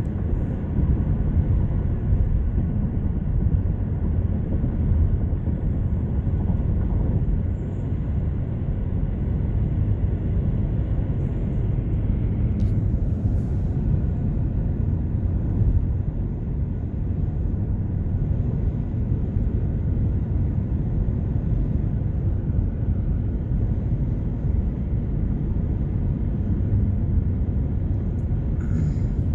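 Long Union Pacific intermodal freight train rolling past, a steady low rumble of its cars going by.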